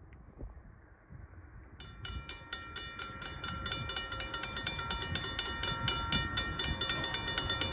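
Railroad crossing warning bell starting up about two seconds in and ringing in a rapid, even rhythm as the crossing signals activate, over a low rumble of the approaching train that grows louder.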